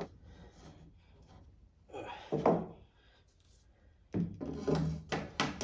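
Claw hammer striking a nail into a timber stud about four times in quick succession from about four seconds in, driving it through the stud's base into the bottom plate to hold the twisted stud straight. A single brief knock comes about two seconds in.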